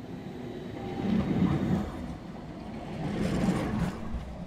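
A light rail tram passing close by, its steel wheels rumbling along the rails. The rumble swells about a second in and again about three seconds in.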